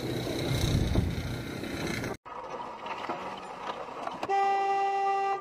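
Street noise with a heavy low rumble that cuts off abruptly, then quieter traffic noise. Near the end a car horn sounds in one steady blast of about a second.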